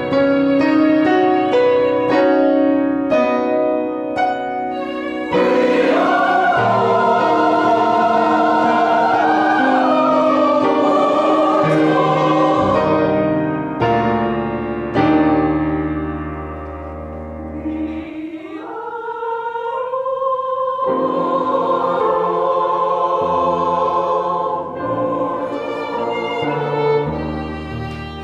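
Choral singing with instrumental accompaniment. An instrumental passage of separate notes leads in, voices with vibrato enter about five seconds in, drop out for a few seconds around the middle, and return for the second half.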